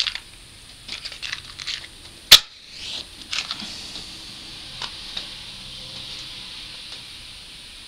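A wooden match being struck: a few scratching strokes, then a sharp strike about two seconds in. The head flares with a hiss, which settles into the steady hiss of the burning match.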